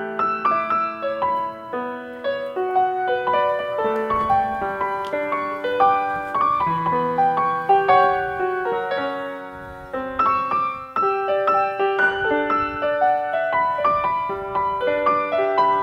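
Background instrumental music, a gentle piano-like melody of single notes over held lower notes, softening briefly about two-thirds of the way through.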